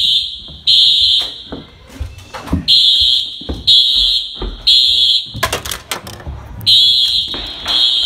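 Building fire alarm sounding a loud, high-pitched tone in the temporal-three evacuation pattern: three half-second blasts about a second apart, then a pause, repeating. Low thumps sound underneath, with a quick cluster of clicks and knocks about two-thirds of the way in.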